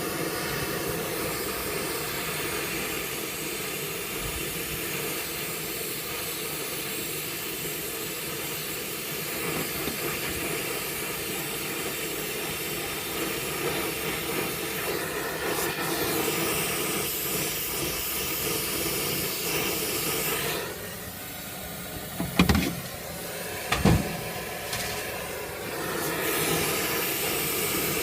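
Brazing torch flame hissing steadily while a copper fitting is brazed. The hiss dips about 20 seconds in, two sharp knocks follow, and then the hiss comes back.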